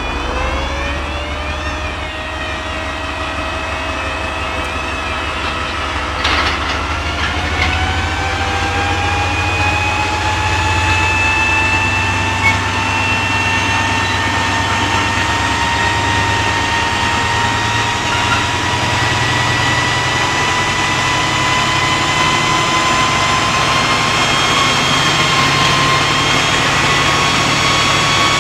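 GE Class 70 PowerHaul locomotive's V16 diesel engine running up under its self-load test, driving into the dynamic brake: a deep steady engine drone with whines that climb slowly and steadily in pitch as it gathers power. There is a single click about six seconds in.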